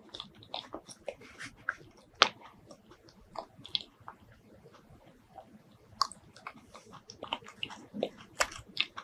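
Close-miked chewing of soft, creamy mini durian flesh: scattered wet, sticky mouth clicks and smacks, with one sharp click about two seconds in, a sparser stretch in the middle, and a denser run of clicks near the end.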